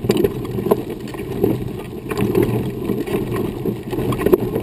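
Wheelchair wheels rolling over a dirt and gravel trail: a steady rumble with many small clicks and rattles.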